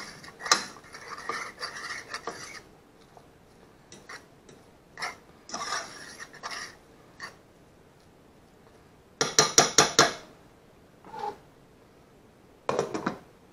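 A spoon stirring and scraping fried rice around a nonstick frying pan, in strokes that come and go. About nine seconds in there is a quick run of sharp metal clinks, and near the end a short clatter as the pan's glass lid goes on.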